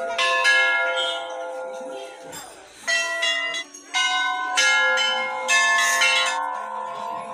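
Brass temple bells being rung by devotees: several separate strikes, each one ringing on and overlapping the next.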